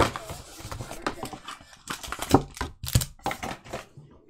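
Cardboard trading-card hobby box being opened and handled, with a string of taps, clicks and knocks as the foil-wrapped card pack is taken out and set down on the mat; the loudest knocks come at the start and about two and three seconds in.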